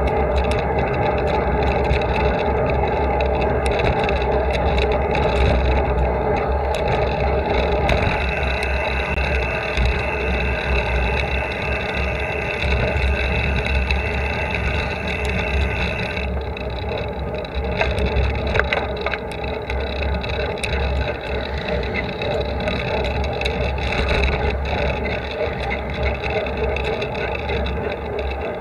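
Wind buffeting a handlebar-mounted camera and the steady hum of a bicycle riding on asphalt on 30 mm slick road tyres, with small knocks and rattles from the bars.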